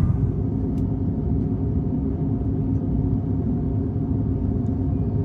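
Steady low cabin rumble of an Airbus A350-900 in flight, engine and airflow noise heard inside the passenger cabin, with a faint steady hum and a few light clicks.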